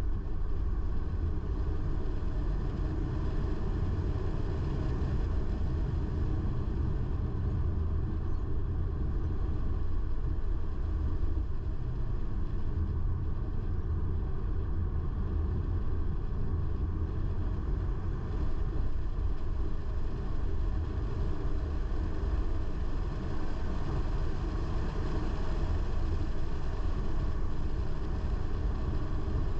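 Car driving along at a steady pace: a constant low engine and road rumble.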